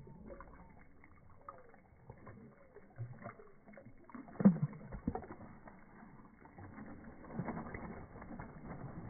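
Shallow water splashing and sloshing close to the microphone, with irregular knocks; the loudest splash comes about four and a half seconds in, and the splashing grows busier near the end.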